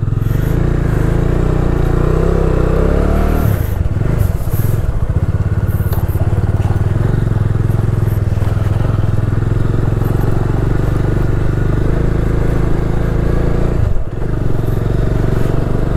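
Bajaj Dominar 400's single-cylinder engine running as the motorcycle pulls away, the pitch rising over the first few seconds as it accelerates, then holding steady with a brief dip in loudness near the end. Tyres crunch over loose dirt and gravel.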